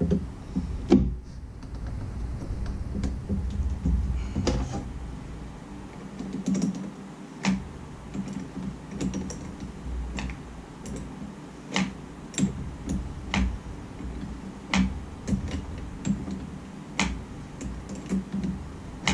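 Irregular sharp clicks and light taps of small plastic parts being handled at a Jeep Wrangler TJ's under-hood fuse and relay box, over a low steady hum.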